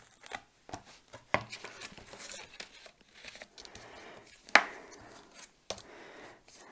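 Paper card panel sliding and rustling on a stamp positioning tool as it is set into place. Two sharp clicks stand out, about a second and a half in and again near the middle, as the tool's pink holders are set down on it.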